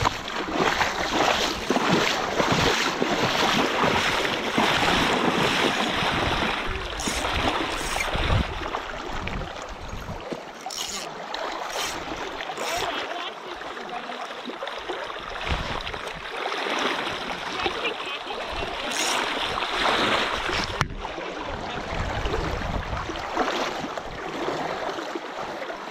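Fast river current rushing and splashing at the water's edge, with uneven wind rumble on the microphone.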